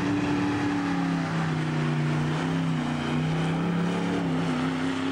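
Drag-race engines at full throttle down the strip, the pitch climbing just before and then holding high, with a few small steps up and down.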